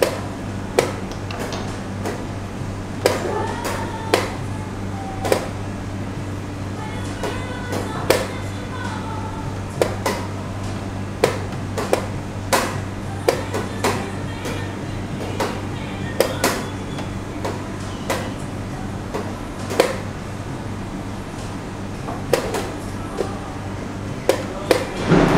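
Rapid clacks of wooden chess pieces being set down on the board and the chess clock's buttons being pressed during a blitz game, a sharp knock every second or so, over a steady low hum.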